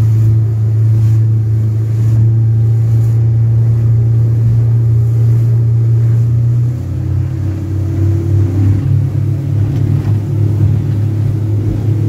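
Boston Whaler motorboat's engine running under way, a loud steady deep drone. About seven seconds in, its pitch drops slightly and the sound turns more uneven.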